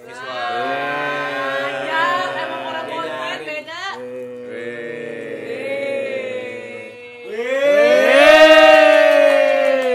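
Music with no beat: long held chords in three phrases, the last one swelling upward in pitch and growing loudest near the end, like a build-up or intro.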